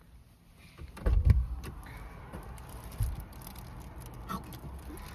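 Handling noise from someone shifting about inside a parked car: a couple of dull thumps about a second in, another about three seconds in, and small clicks over a faint steady hum.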